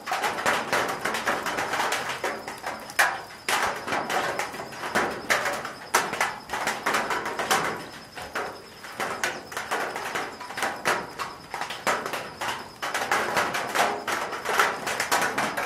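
Raindrops falling on a corrugated metal roof: a dense, irregular run of small taps and drips that keeps going without a break.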